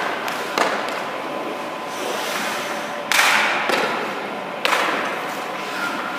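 Hockey goalie's skate blades scraping the ice in two sudden bursts, about three seconds in and again near five seconds, each fading out over about half a second. A couple of short knocks come in the first second.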